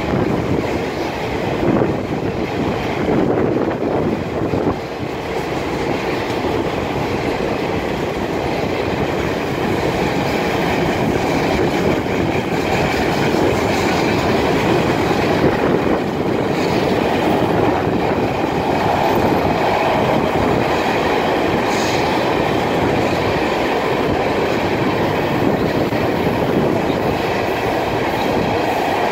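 A Florida East Coast freight train's boxcars and then tank cars rolling past, their wheels making a steady rolling noise on the rails.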